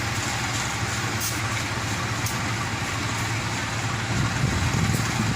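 A large engine running steadily with a low hum under outdoor noise, growing a little louder about four seconds in.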